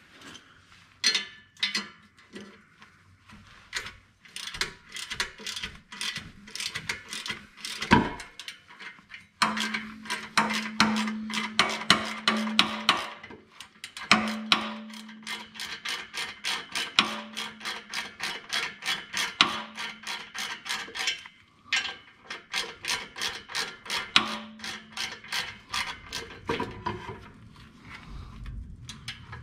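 Hand ratchet clicking in quick runs, about five or six clicks a second, as the last pressure-plate bolt of a twin-disc clutch is loosened. There are short pauses between runs and one louder knock about eight seconds in.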